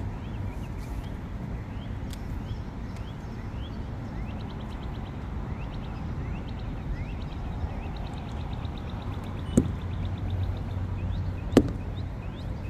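Steady low outdoor rumble with faint rapid chirping, and two sharp clicks about 9½ and 11½ seconds in.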